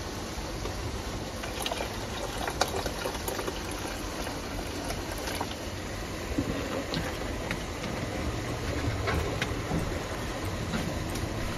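Plastic bottles and a paper coffee filter being handled on a table: scattered light clicks and crinkles over a steady low hum and hiss.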